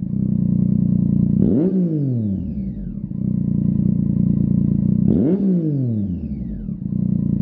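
Triumph Tiger 800's inline three-cylinder engine idling through a Lextek XP13C carbon aftermarket silencer, blipped twice. The revs jump sharply and fall back to idle, about a second and a half in and again about five seconds in.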